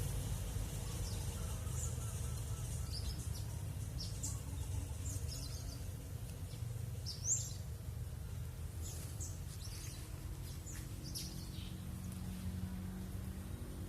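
Small wild birds chirping, many short high calls overlapping from several birds, with one louder call about seven seconds in. A steady low rumble runs underneath.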